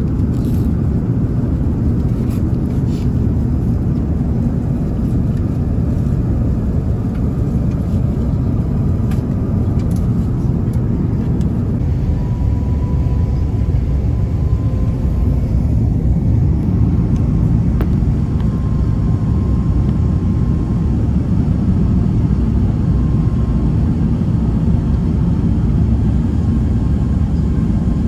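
Airbus A350-900 cabin noise: the steady low rumble of the engines and rushing airflow heard from an economy seat in flight, with a few light clicks in the first ten seconds or so.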